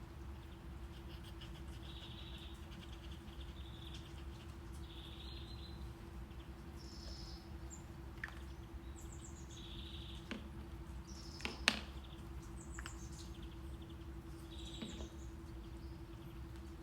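Steady low brown noise with a faint constant hum, overlaid with a recording of birds chirping in short repeated calls. A few sharp taps cut through, the loudest a little before two-thirds of the way in.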